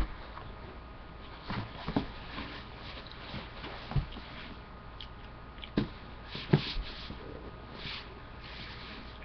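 Scattered knocks and thumps with some rustling as a child moves about and handles a sheet of cardboard close to the microphone, about five sharp knocks in all, the loudest a little past the middle.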